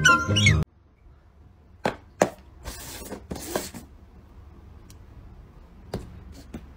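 Music cuts off abruptly less than a second in. Then come paper cups on a tabletop: two sharp taps as they are set down, two short scrapes as they slide across the table, and a few light taps near the end as the dog noses and paws at a cup.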